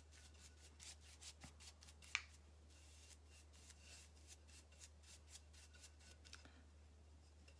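Faint, quick scratchy strokes of a paintbrush dabbing chalk paint onto a terracotta pot, repeated over and over, with one sharper tap about two seconds in.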